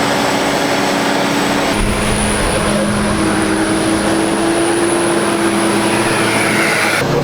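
A motor vehicle's engine running steadily under load, its pitch climbing slowly, heard in short clips with abrupt cuts, one about two seconds in and another near the end.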